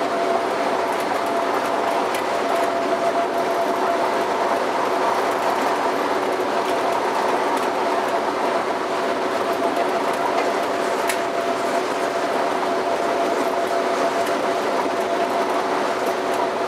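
Electric passenger train running at a steady speed, heard from the driver's cab: an even rushing noise with a couple of steady held tones under it, and a faint click or two.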